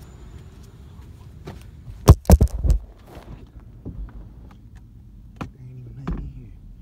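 Phone handling noise: a quick run of loud knocks and rubs about two seconds in, then scattered faint clicks and one softer knock near the end.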